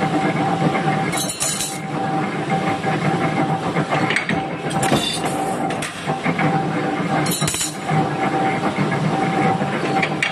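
J23-80 open-back mechanical power press running: a steady motor and flywheel hum with a constant tone, broken by a sharper burst roughly every three seconds as the press cycles through a stroke.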